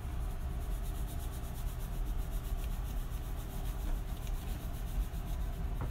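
Salt mill being twisted over a dish of asparagus, a steady gritty grinding with fine rapid strokes, over a steady low hum.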